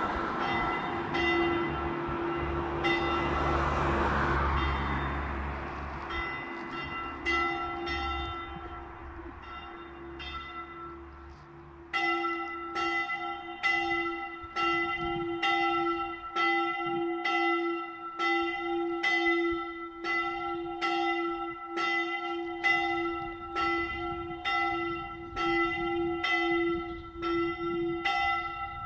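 A swinging church bell, a 1918 Ulrich & Weule bronze bell, rings in a steady rhythm of about one and a half strokes a second, rung for the evening Angelus and death knell. The strokes grow clearly louder about twelve seconds in. Over the first several seconds a low rumble with a hiss swells and fades beneath the bell.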